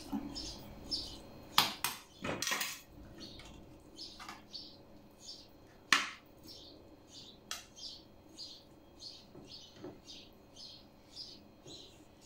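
Metal spoons clinking against a steel pot and tray a few times, the sharpest clinks about one and a half seconds in and about six seconds in, while cabbage leaves are filled with stuffing. A small bird chirps repeatedly in the background.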